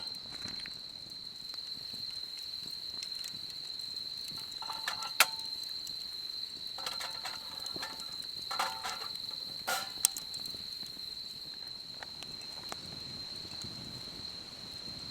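An insect, likely a cricket, trills in one steady, unbroken high tone. A few sharp clicks and short clattery knocks sound over it, the loudest about five and ten seconds in.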